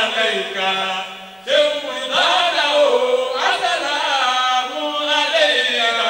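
A man's amplified voice chanting an Islamic devotional song through a handheld microphone, in long held notes that bend up and down. The chant fades about a second in and comes back loud about half a second later.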